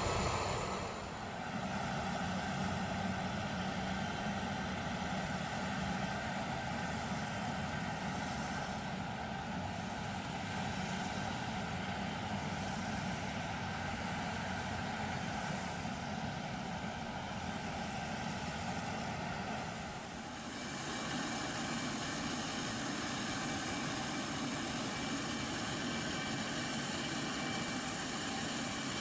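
Jet engines of a Batik Air A320-family airliner running steadily at low power as it rolls along the ground. About 20 seconds in, the sound cuts to a different steady engine hum with a faint high whine, from the apron where an A330 is being unloaded.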